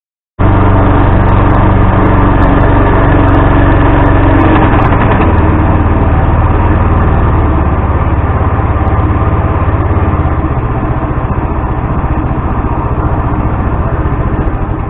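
A small boat's outboard motor running steadily under way. Its pitch shifts about four seconds in, and it eases off and grows quieter over the last few seconds.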